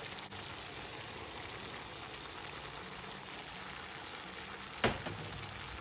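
Banana-and-jaggery halwa mixture simmering in a pan on low flame, a steady bubbling sizzle. One sharp knock about five seconds in.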